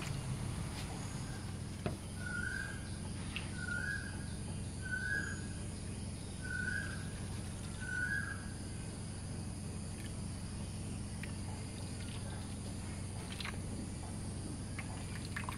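A bird giving five short chirps about a second and a half apart, over a steady low hum.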